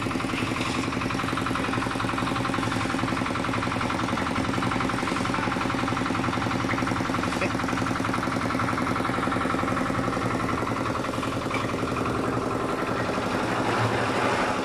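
Small engine of a portable drum concrete mixer running steadily at an even pulse.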